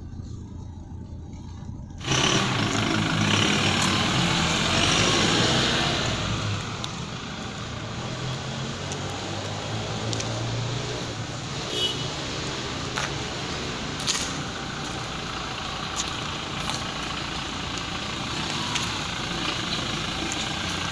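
Toyota Innova's 2GD-FTV four-cylinder turbodiesel running as the car drives slowly across a paved lot, heard from outside. The sound is muffled for the first two seconds, then turns suddenly louder and fuller for a few seconds before settling to a steadier level, with a few short clicks later on.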